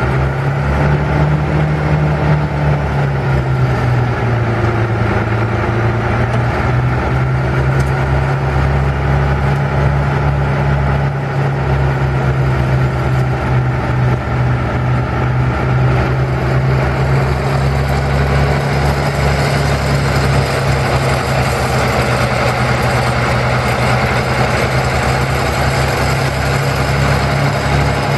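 Allis Chalmers 7040 tractor's 7.0L six-cylinder turbo diesel engine running steadily, with more high-pitched hiss in the last third.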